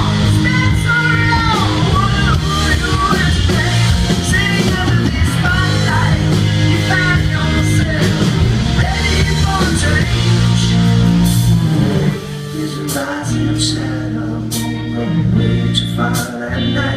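Rock band playing live: a lead line with bending notes over bass and drums, dropping to a quieter passage with cymbal hits about twelve seconds in.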